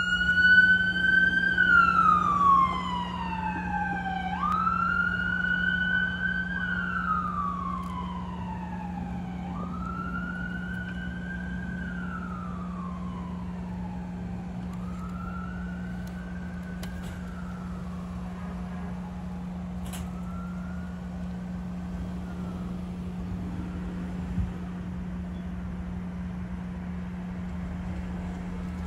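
Fire battalion chief's car siren on a slow wail, rising and falling about every five seconds and fading away as the car drives off, gone by about three quarters of the way through. A steady low hum runs underneath.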